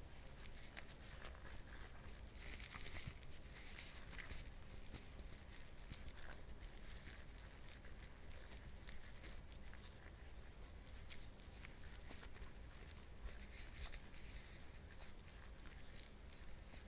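Nitrile-gloved hands kneading and squishing butter mixed with fish dashi powder. The sound is a run of soft sticky squelches and small crackling clicks, with glove rubbing.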